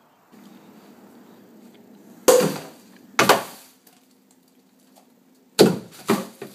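Plastic drink bottles tossed into a bag-lined plastic bin, landing with sharp knocks that ring briefly: two about two and three seconds in, then a quick run of three near the end.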